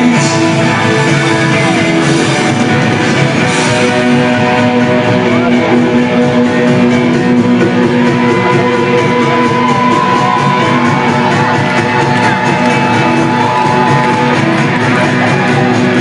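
Rock band playing live at full volume: electric guitars, bass and drums in an instrumental stretch without vocals, with a long held note about ten seconds in.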